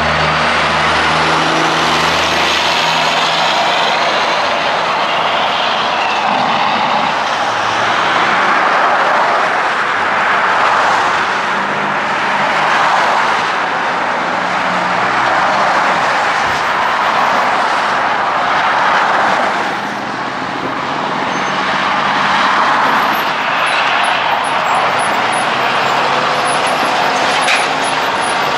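Busy highway traffic: semi-trucks and cars passing, diesel engines running under steady tyre noise that swells as each vehicle goes by. A low truck engine hum fades away about two seconds in.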